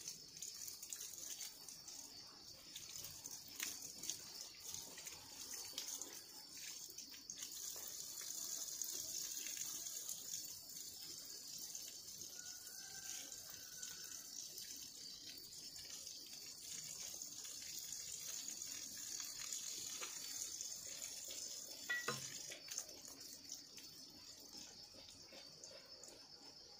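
Water running and splashing from a pipe into a freshly dug pond pit, over a steady high drone of insects. A few short knocks from pipes being handled, the sharpest near the end.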